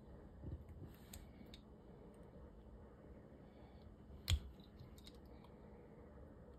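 Faint metal clicks and scrapes as a small pick-type gasket removal tool works inside a brass refrigerant hose adapter, prying at a tight gasket, with one sharper click about four seconds in.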